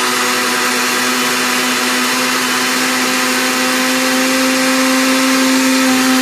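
Countertop electric blender running steadily, blending a liquid mix of condensed milk, milk and egg yolks: a loud, even motor whir with a steady hum whose pitch creeps slightly upward.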